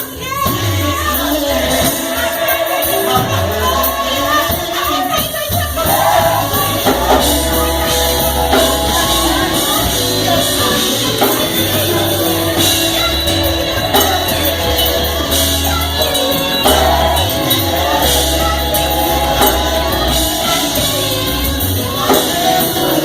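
Gospel choir singing with instrumental backing and a steady bass line.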